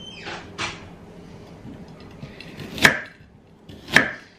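Kitchen knife cutting carrot into battens and striking a wooden chopping board: a light cut about half a second in, then two sharp chops about a second apart near the end.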